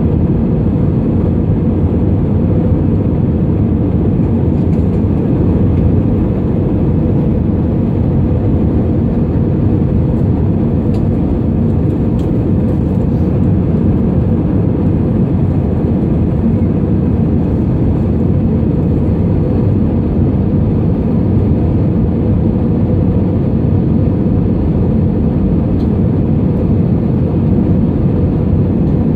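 Steady cabin noise inside an Airbus A320 airliner during its descent: engine and airflow noise heard through the fuselage as an even, deep rumble.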